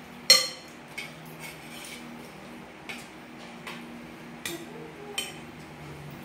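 Metal spoons and forks clinking and scraping against ceramic plates as people eat: scattered sharp clinks, the loudest about a third of a second in.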